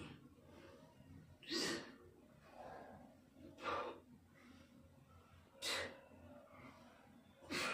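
Four sharp, forceful breaths out, about two seconds apart, one with each rep of a bodyweight squat.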